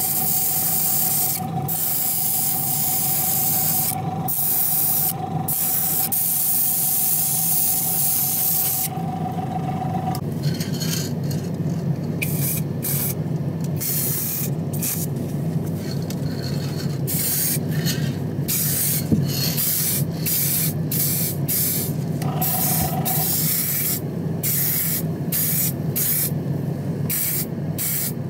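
Compressed-air paint spray gun hissing as paint is sprayed in passes, broken by many brief pauses as the trigger is released, over a steady low hum.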